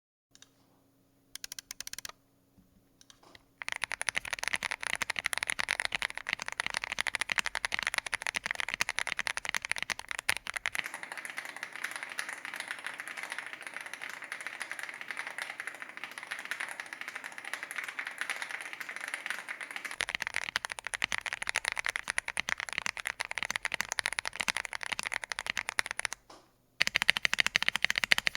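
Typing on an Akko MOD007s V2 aluminium gasket-mount mechanical keyboard fitted with Akko POM Pink linear switches: a few isolated keystrokes, then fast continuous typing, with a short pause near the end before it resumes. The board has no foam and a force-break mod, and there is little case ping.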